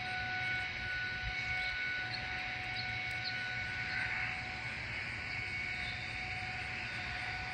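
Distant outdoor tornado warning siren holding a steady tone during a siren test, over a low background rumble.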